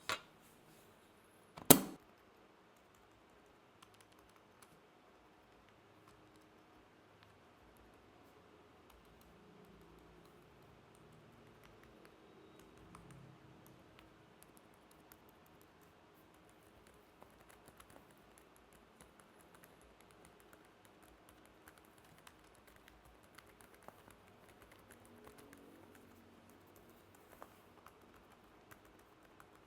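Typing on a mechanical keyboard fitted with Outemu Silent Peach V3 silent switches: faint, soft keystrokes, with two sharp knocks in the first two seconds.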